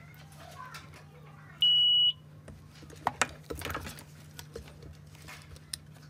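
ZOYI VC17B+ digital multimeter's continuity buzzer giving one high, steady beep of about half a second, about a second and a half in, signalling a closed circuit between the test probes. Light clicks and taps of the probes and plastic parts being handled follow, over a steady low hum.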